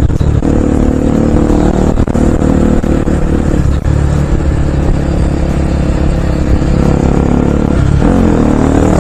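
Bajaj Pulsar NS200's single-cylinder engine running steadily while the motorcycle is ridden; its pitch dips and rises briefly near the end.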